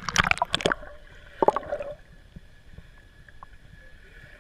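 Water splashing and gurgling against an action camera at the surface, in two bursts in the first two seconds, then a low steady hiss once the camera is under the water.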